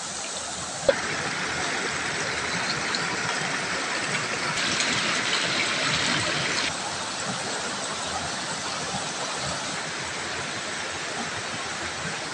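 Shallow rocky stream rushing over stones: a steady hiss of running water that shifts abruptly in loudness a few times, with a brief click about a second in.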